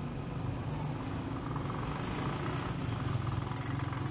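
Motor vehicle engine running steadily with a fast, even throb.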